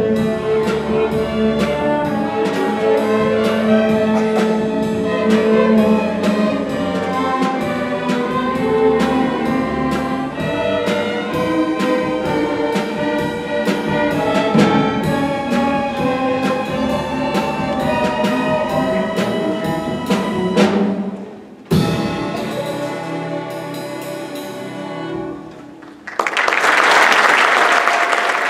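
School string orchestra (violins, cellos, double bass) playing over a steady drum-kit beat. The music stops on a sharp final hit about three-quarters of the way through, a softer held chord follows, and in the last couple of seconds the audience starts applauding.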